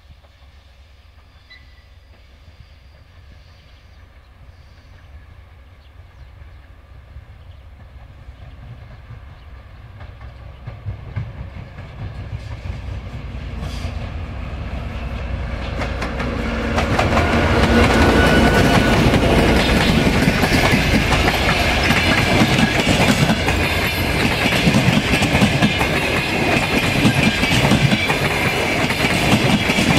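TEP70 diesel locomotive with its 16-cylinder diesel engine running as it approaches, growing steadily louder over about seventeen seconds, then passing close with its passenger coaches. The wheels clatter rhythmically over the rail joints.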